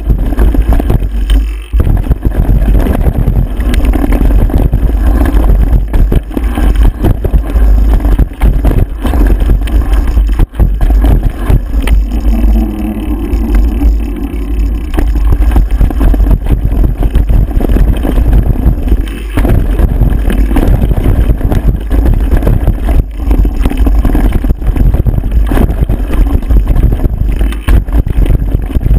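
Loud wind rush buffeting the microphone, mixed with the jolting rattle of riding fast down a bumpy dirt trail. For a few seconds partway through, on a paved stretch, the noise turns smoother and steadier.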